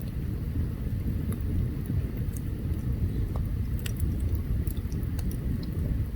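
Open campfire burning, with scattered sharp crackles and pops over a steady low rumble.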